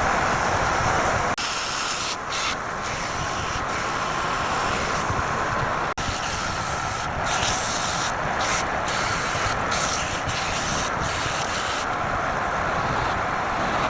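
Wood lathe running while sandpaper rubs against the spinning workpiece, a hissy scraping that comes and goes in strokes.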